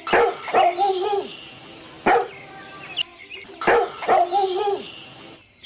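A puppy yapping: short, high barks in two matching bursts, with a single bark between them.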